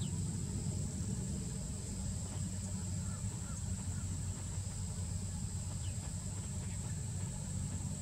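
Steady low rumble with a thin high hiss running over it, and a few faint, short high chirps.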